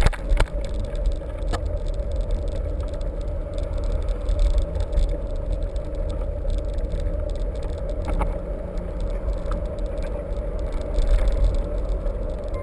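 Mountain bike being ridden over rough ground, heard from a camera mounted on the bike: a steady rattling rumble with a few sharp knocks as it jolts.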